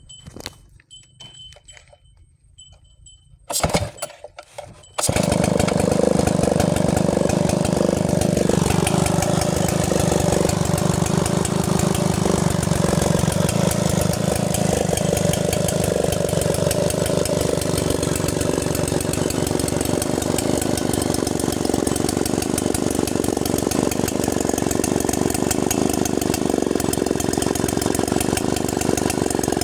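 Stihl 090G gear-drive two-stroke chainsaw being started: a loud pop near four seconds in, then it catches about five seconds in and runs steadily, its speed easing down a few seconds later.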